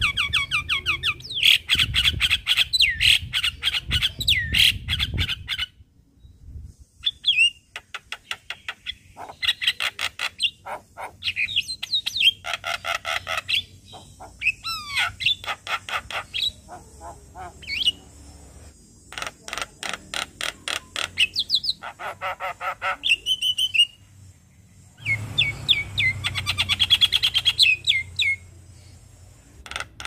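Javan myna singing a long, varied song: rapid trains of repeated chattering notes, harsh squawk-like calls and short gliding whistles, in loud bursts with two brief pauses.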